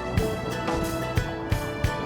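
Background music: sustained melodic notes over regular drum hits.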